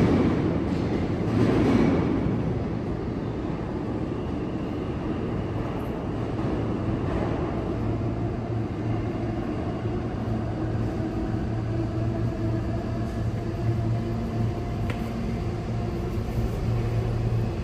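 New York City subway train in the station: a louder rumble in the first two seconds, then a steady hum with a few held tones.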